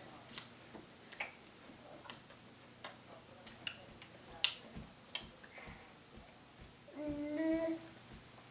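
Faint, scattered small clicks and taps, about one every second, from toddlers eating finger food at plastic high-chair trays. A child sings one short note about seven seconds in.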